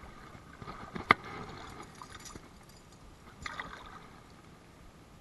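Shallow river water splashing as a smallmouth bass is released by hand: a sharp smack about a second in, the loudest sound, then sloshing, and a second short splash a little past three seconds.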